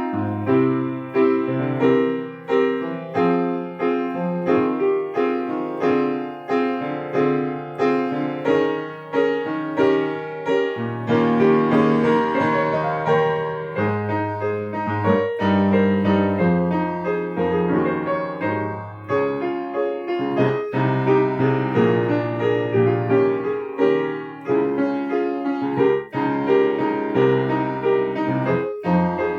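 Piano played continuously: a steady stream of struck notes over held bass notes, growing fuller and louder about eleven seconds in.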